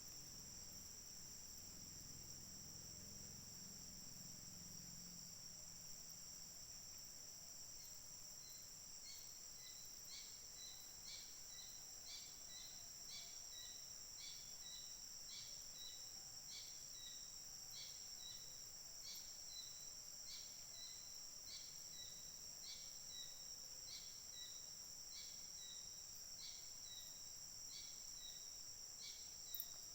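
Faint steady high-pitched insect drone of crickets or cicadas, joined about a quarter of the way in by a bird's short call repeated over and over, about two notes a second.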